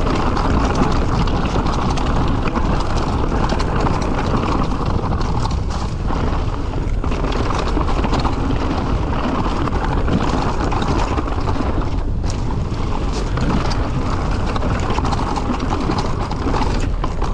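Mountain bike descending a rough, rocky downhill trail: a continuous rumble of tyres over rock with frequent knocks and rattles from the bike, and wind noise on the microphone.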